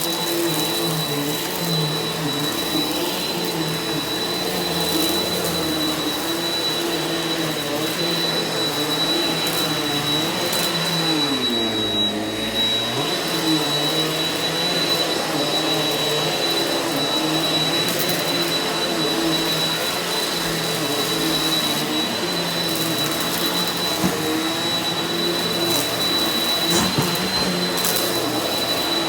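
Eureka NEU180B Power Speed upright vacuum cleaner running steadily over carpet, a motor hum with a high whine. About eleven seconds in, the motor pitch sags for a couple of seconds and then comes back up.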